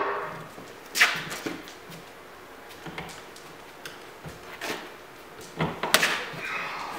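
A few separate knocks and clunks as the Jeep Cherokee's rear liftgate and a wooden 2x4 prop are handled, the liftgate being raised on one newly fitted gas strut. The loudest knock comes about a second in, and a cluster of clunks comes near the end.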